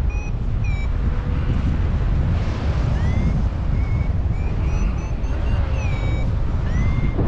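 Strong wind buffeting the microphone in a steady low rumble, with a scatter of short high chirps, some sliding up in pitch and some down.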